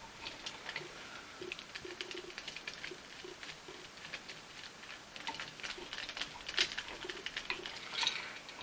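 Irregular small clicks and scrapes of wires and a screwdriver being worked on the terminal screws of a 3-way wall switch, tightened by hand.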